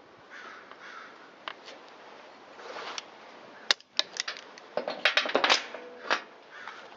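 A series of sharp metallic clicks and clinks from hand tools being handled, clustered in the second half, over a faint steady background hiss.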